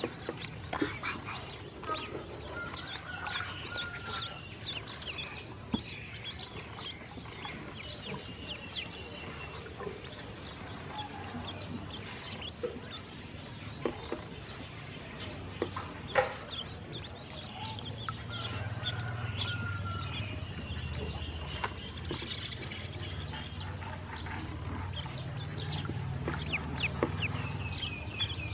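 A group of ducklings peeping continuously in short, high chirps, with a few sharp clicks scattered through.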